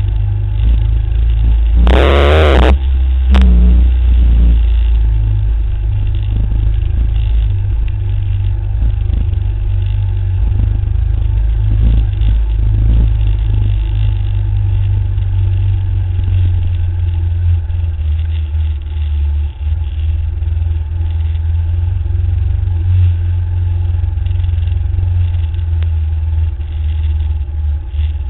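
Motorcycle engine running at a steady, easy pace, heard from a camera mounted on the bike as it rides a gravel byway. A brief loud burst of clatter comes about two seconds in.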